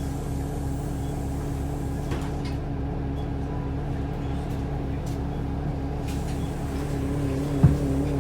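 Optare Versa single-decker bus engine idling steadily, with one short sharp knock near the end.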